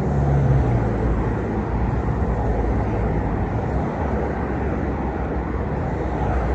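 Street traffic: vehicle engines running steadily.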